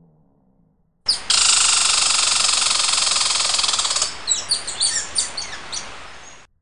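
A dense chorus of bird chirping starts suddenly about a second in, thins to separate short falling chirps a few seconds later, and cuts off abruptly just before the end.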